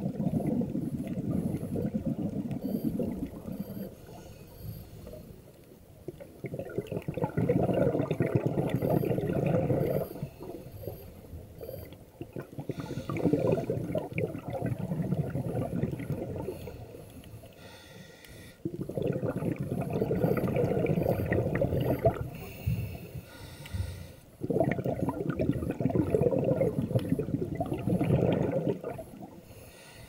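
Scuba diver breathing through a regulator underwater: five bursts of exhaled bubbles, each lasting about three to four seconds, with quieter gaps between them for the inhalations.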